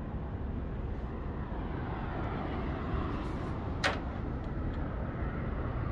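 Steady low rumble of outdoor wind on the phone's microphone, with one sharp click about four seconds in.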